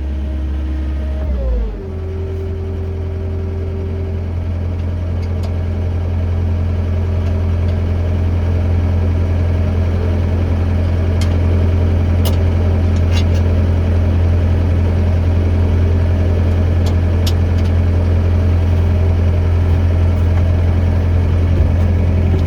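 John Deere 317 skid steer loader engine running. Its speed drops about two seconds in, then it runs steadily, with a few faint ticks.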